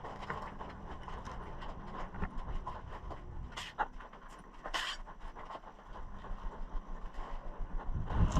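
A person breathing hard while moving, with scuffing and rustling, and two sharp snaps about a second apart a little after the middle.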